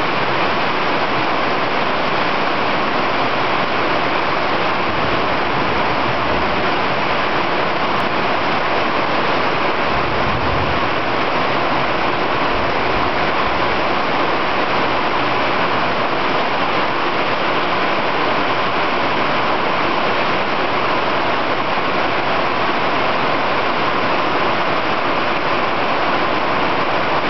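Heavy rainstorm downpour: a loud, steady rush of torrential rain and running water, heavy enough to fill a 10,000-litre rainwater tank in 20 minutes. A brief low rumble comes about ten seconds in.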